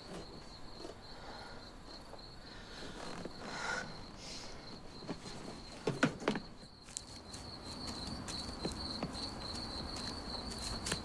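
Night-time cricket chirring, a steady high pulsing tone that does not let up, with a couple of short sharp knocks about six seconds in.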